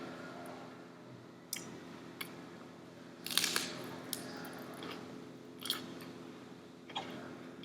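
Close-up eating sounds: a person chewing and biting into crisp food, with sharp crunches every second or so and a quick cluster of them about three seconds in, over a steady low hum.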